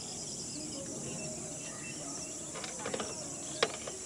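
Insects chirring steadily at a high pitch, with a few faint knocks and one sharp click about three and a half seconds in.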